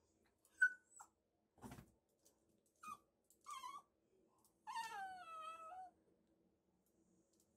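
Bichon Frise whining at a shelf to have something taken down: a few short high whimpers, a brief breathy huff a little under two seconds in, and about five seconds in one longer whine that slides downward in pitch.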